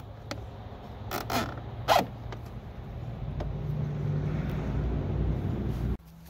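Nylon zip tie pulled tight through its ratchet, a quick zipping rasp about one to two seconds in. A low rumble then builds and stops suddenly near the end.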